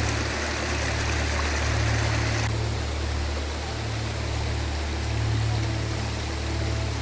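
Forest river water flowing and rushing steadily, an even hiss that suddenly turns softer about two and a half seconds in. A low, soft musical drone swells and dips underneath.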